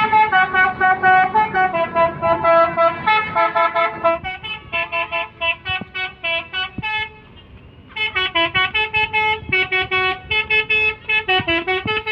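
A bus's 'telolet' musical horn, a set of air horns playing a fast tune of short notes in several pitches, about four notes a second. It drops to a softer level about four seconds in, stops briefly, then starts again loudly about eight seconds in.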